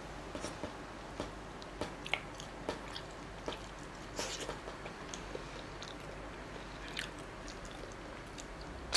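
Chewing and crunching on a whole shrimp, head and shell included: faint, irregular clicks and crackles, thickest about four seconds in.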